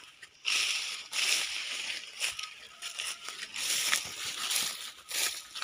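Tall grass rustling and swishing in repeated strokes as someone wades through it on foot.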